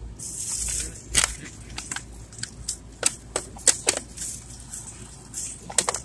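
Plastic takeout food containers and bags crinkling and clicking as they are handled, in irregular sharp snaps.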